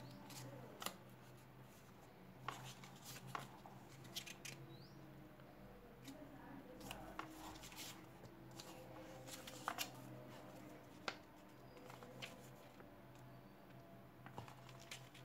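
Faint rustles and scattered soft flicks of paper as the pages of a small instruction booklet are turned by hand.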